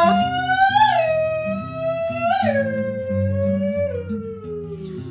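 A man's voice holding one long wailing 'oh' that scoops up twice and then slides slowly down in pitch, over strummed acoustic guitar chords.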